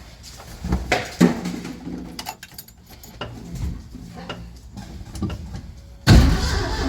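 A few scattered clicks and clunks of hand work on the 1970 Ford Mustang, then about six seconds in its engine suddenly catches and runs loudly.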